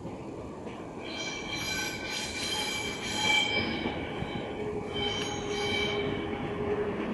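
Regional passenger train's steel wheels squealing on the rails as it rolls by, over the rumble of the running gear. The high, shrill squeal comes in two spells, a longer one starting about a second in and a shorter one about five seconds in.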